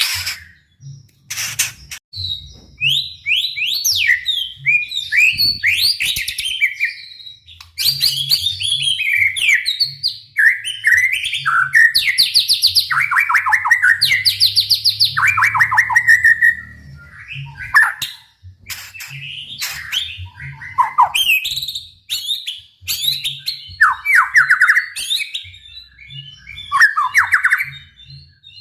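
White-rumped shama singing a long, varied song of sweeping whistles, fast trills and sharp clicks, broken by short pauses, including an unbroken stretch of rapid trilled phrases in the middle.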